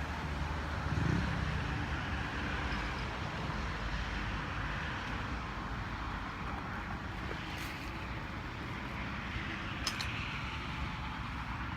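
Steady outdoor background rumble with a continuous hiss, with two short clicks about eight and ten seconds in.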